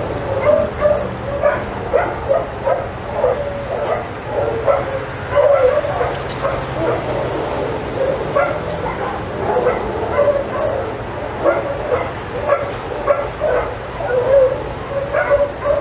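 Dog barking and yipping over and over, about two calls a second, with a few drawn-out whining calls mixed in.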